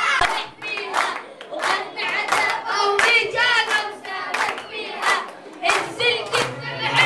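A group of children's voices chanting together, with sharp hand claps scattered through.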